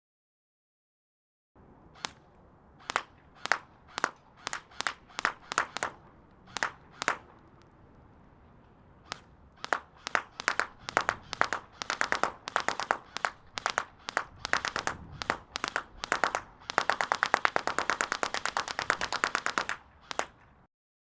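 Bubble wrap popping as airsoft BBs hit it. The pops come singly at first, grow more frequent around the middle, then run together in a rapid string for about three seconds before stopping.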